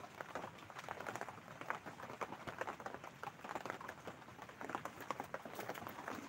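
Rain pattering and dripping in a dense, irregular stream of small taps.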